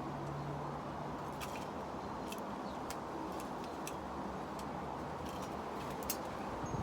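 Steady wind noise with faint, light ticks scattered through it, roughly one a second.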